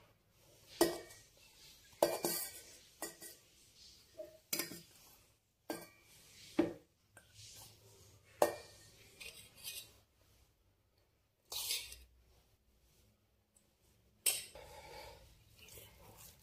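A stainless-steel bowl and a steel mixer-grinder jar clinking and knocking against each other as cooked rice is handled into the jar: about a dozen separate knocks. Near the end comes a softer squishing rustle as the rice is pressed down by hand in the jar.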